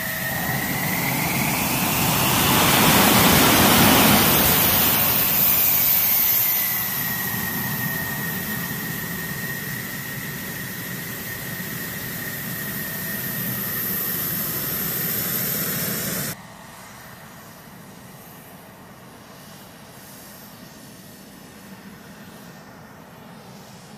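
F-16D jet engine running with a steady high whine. The engine noise swells and the whine rises in pitch, loudest about four seconds in, then settles back to a steady run. About sixteen seconds in it cuts off abruptly to a much quieter steady hiss.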